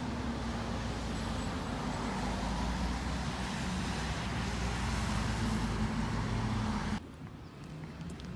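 Steady vehicle running noise with a low rumble, which cuts off suddenly about seven seconds in.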